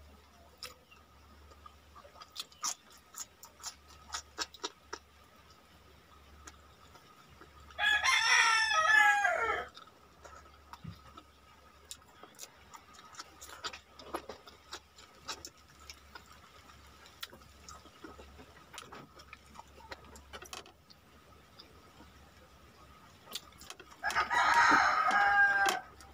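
A rooster crows twice, once about eight seconds in and again near the end, each crow lasting under two seconds. Between the crows come soft clicks of chewing and eating by hand.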